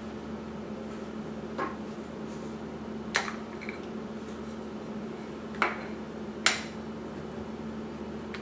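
Four sharp clicks and taps of plastic camera caps being handled: a lens rear cap twisted off and set down on a wooden table, and a camera body cap being worked loose. The last click, about two-thirds through, is the loudest; a steady low hum runs underneath.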